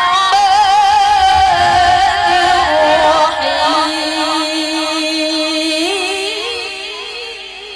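A woman's voice in melodic Qur'an recitation, drawing out one long ornamented phrase with a wavering pitch; it steps down lower about three seconds in and fades toward the end.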